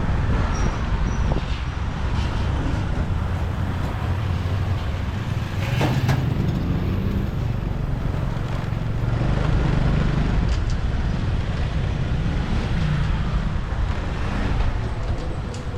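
Motorbike riding in traffic: its engine running under steady road and traffic noise, the engine note swelling a couple of times, with a short sharp click about six seconds in.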